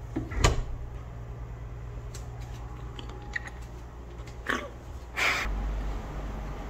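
A bite into a whole raw tomato, a sharp crack about half a second in, followed by quiet chewing and a few small knocks. A low rumble of handling noise on the handheld camera's microphone begins near the end.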